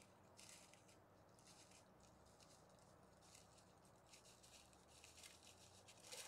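Near silence with faint, irregular rustles and crackles of dry leaf litter, a soft burst every second or so.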